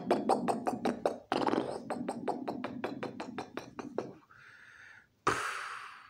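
A man making vocal mouth noises: a fast, even string of pops, about seven a second, for roughly four seconds with a short break near the first second. About five seconds in comes a sudden hissing burst that fades away.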